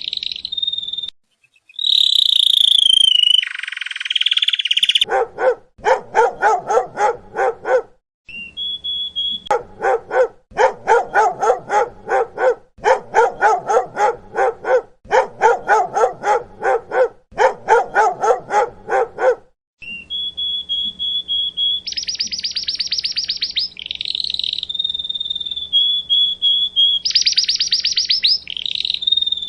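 A dog barking in long, fast, evenly spaced runs of barks, taking up most of the middle of the stretch. High-pitched chirping and trilling comes before and after the barking, over a steady high whistle-like tone near the end.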